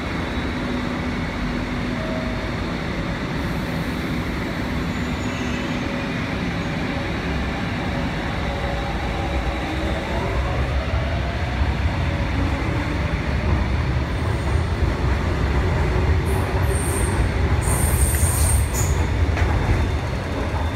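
MTR Kwun Tong line C-Train electric train running along the platform without stopping: a steady rumble of wheels on rail that grows louder over the second half. A whine rises in pitch about ten seconds in, and high wheel squeals come near the end.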